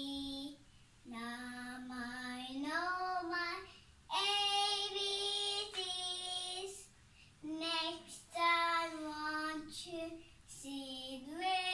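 A young girl singing unaccompanied. The tune comes in several phrases of held notes, with short breaks between them.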